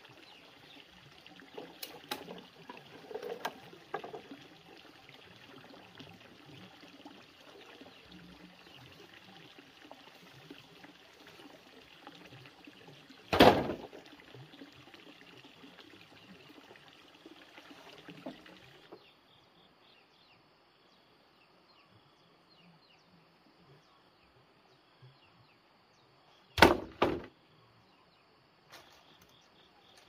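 Steady outdoor background noise with a few light knocks, then two loud, sharp thumps, one about halfway through and one near the end. The background noise stops abruptly about two-thirds of the way in, leaving it much quieter.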